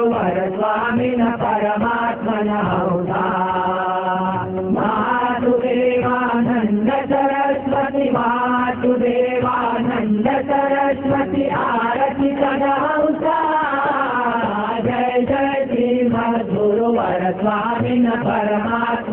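A group of men singing a devotional chant, with harmonium and tabla accompaniment.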